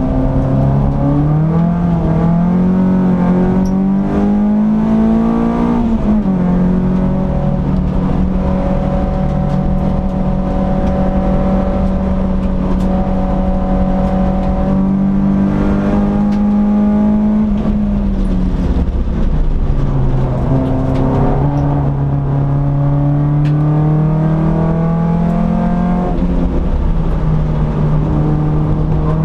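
Peugeot 206 S16's 2.0-litre sixteen-valve four-cylinder engine heard from inside the cabin, driven hard on a race track: it climbs in revs, drops with a gear change about six seconds in, holds high revs for a long stretch, falls away around eighteen seconds as the car slows, then climbs again with another shift near the end.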